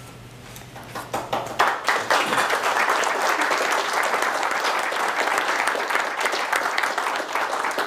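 Audience applauding: scattered claps that swell into steady applause about a second or two in, then die away near the end.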